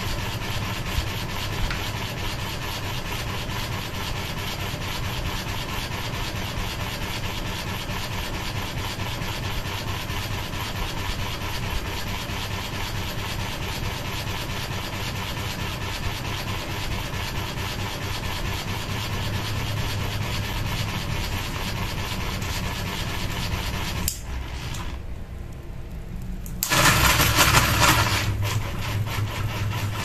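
Ceiling fan running with a low hum while its spinning blades brush against a sheet of paper held into their path, a steady fast rasping flutter that shows the blades wobbling. The rasp drops out for a couple of seconds and then comes back louder near the end.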